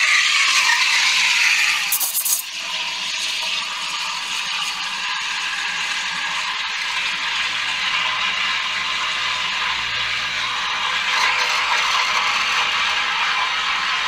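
Steam wand of an E61 espresso machine steaming milk in a stainless steel pitcher: a steady hiss, louder for about the first two seconds, then settling to a smoother, quieter hiss as the milk heats.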